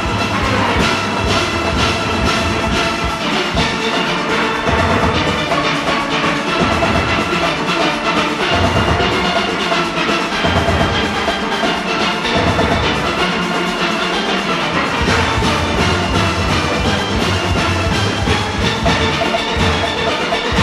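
A large steel orchestra playing live: many steel pans ring together in a dense, continuous arrangement over pulsing bass pans and a percussion beat.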